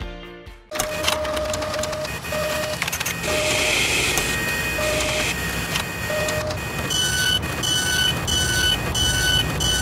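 Mechanical sound effects for an animated machine: whirring and rapid clicking like a printer, with short electronic tones now and then. From about seven seconds in, a regular run of short two-tone beeps, about two a second.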